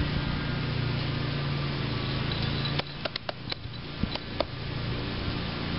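Wind buffeting the microphone over a low steady hum, which drops away about three seconds in. A quick scatter of sharp clicks and snaps follows.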